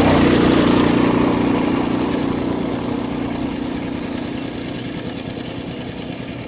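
Two-wheel power tiller engine running steadily under load as the tiller churns through paddy mud, gradually getting quieter.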